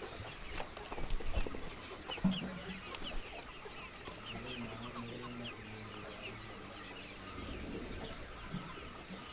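A flock of laying hens clucking and calling, many short calls overlapping without a break.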